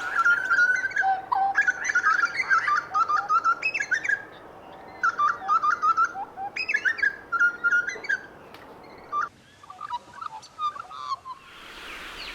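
Butcherbird singing a run of short whistled notes that glide up and down, with small birds chirping faintly and higher behind it. About nine seconds in the background changes, and sparser whistled notes follow.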